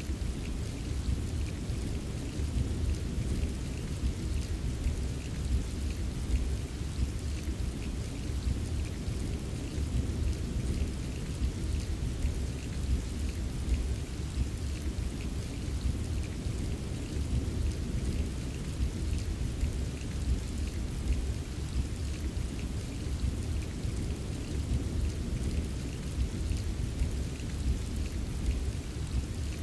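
Steady rain, drops ticking over a continuous low rumble of a thunderstorm.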